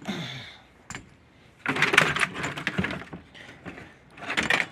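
Clicking and clattering of hard plastic and metal electronic scrap being handled and rummaged through, in two bouts: a longer one from just under two seconds in and a shorter one near the end.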